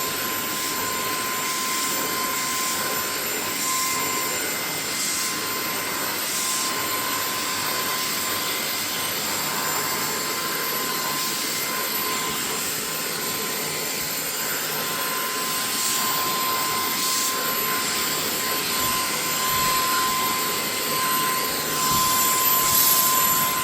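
Vacuum cleaner running steadily with a constant high whine, its nozzle being passed over a cat's fur, with the hiss swelling briefly now and then.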